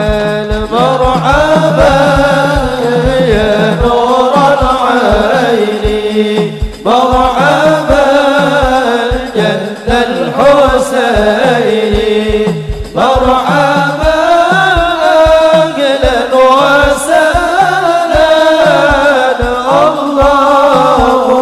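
Men singing Arabic sholawat, devotional praise of the Prophet, together into microphones in long ornamented phrases, with rebana frame drums beating a steady rhythm underneath. The singing breaks off briefly twice, about seven and thirteen seconds in, before the next phrase begins.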